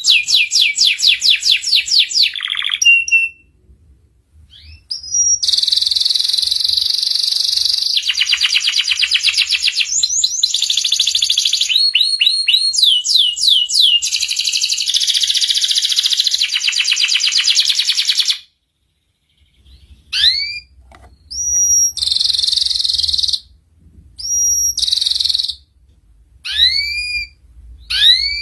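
Young domestic canary singing. Long runs of rapid trills and rolls are followed, about two-thirds of the way in, by a brief pause and then shorter phrases with rising whistled notes.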